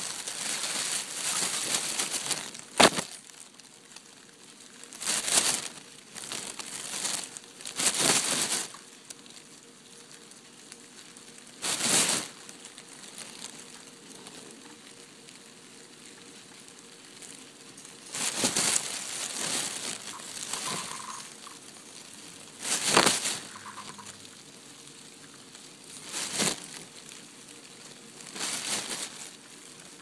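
Brood II periodical cicadas packed in a plastic bag making short, rasping croaking buzzes in repeated bursts of a second or two, with quiet gaps between, mixed with crinkling of the bag.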